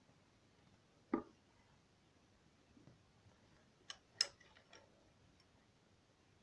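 A few short, sharp clicks and taps over quiet room tone: one about a second in, then a quick cluster of clicks about four seconds in.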